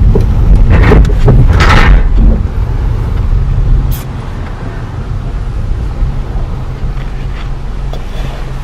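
Honda car running, heard from inside the cabin as it rolls slowly in. About four seconds in, the low rumble drops and a steady engine hum at idle remains.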